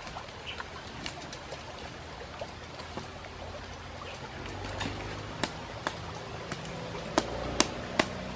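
Wood campfire crackling, with irregular sharp pops that come louder and more often near the end as the fire is poked with a stick, over a steady low rumble of running water.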